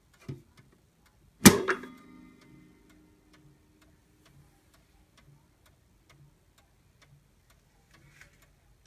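Howard Miller triple-chime mantel clock: its door shuts with a sharp clack about a second and a half in, followed by a brief ringing, then the movement ticks steadily and faintly, a little faster than once a second.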